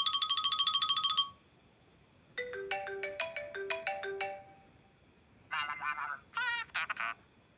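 iPhone 7 Plus alert tones played one after another: a rapid run of beeping pulses that stops about a second in, then a short melodic run of chime notes, then a few warbling, chirping electronic tones near the end.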